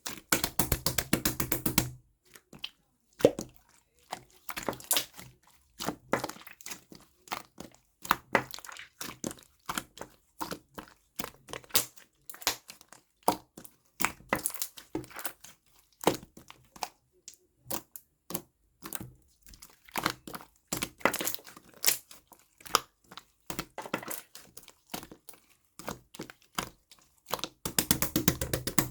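Jelly-textured glitter slime being squeezed and poked by hand, giving an uneven stream of sharp clicks and pops, with denser crackling stretches near the start and near the end.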